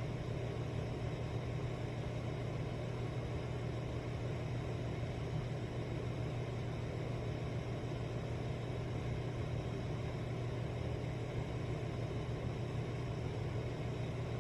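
Steady low rumbling background noise, even and unbroken, with a hum strongest in the low range: a sleep-sound ambience bed.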